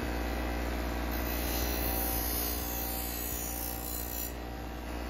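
Ryobi bench grinder motor running with a steady hum while the edge of a long aluminium strip is held against its wheel to smooth it.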